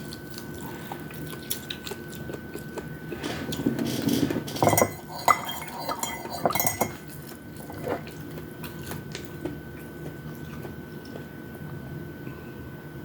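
Spoon and fork clinking and scraping on a plate during a meal of chicken wings and rice: scattered clicks, with a busier run of clinks about five to seven seconds in.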